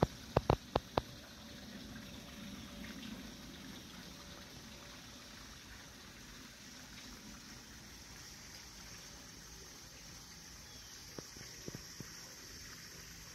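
Faint steady rushing noise, with a quick run of four sharp clicks in the first second and a few softer clicks near the end.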